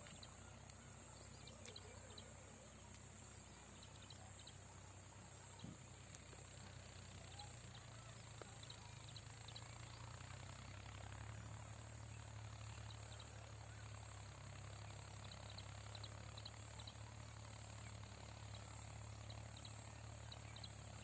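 Faint evening countryside ambience: insects chirring in a steady high-pitched band that swells and fades every second or two, over a low steady hum, with scattered tiny ticks.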